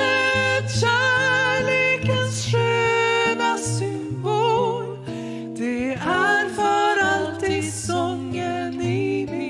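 Two women singing a worship song together into microphones, with held notes and vibrato, accompanied by an acoustic guitar.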